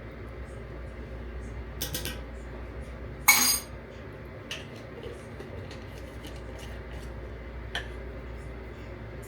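Cookware and metal utensils clinking and clanking: a short rattle, then one loud ringing metal clank about a third of the way in, then a few lighter clicks, over a steady low hum.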